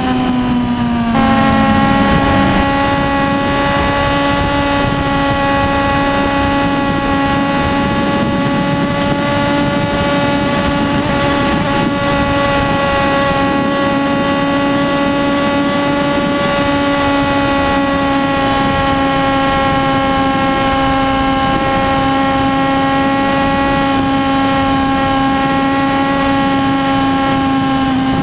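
Yamaha YZF-R1's 998 cc inline-four engine running hard at highway speed, with wind rush over the bike. Its note is falling at first; about a second in it steps up and gets louder, then holds steady at high revs.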